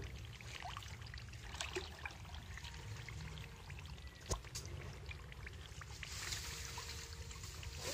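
Shallow muddy pond water trickling and splashing lightly as people wade and grope through it by hand, with scattered small clicks, a sharper click about four seconds in, and a steady low hum underneath.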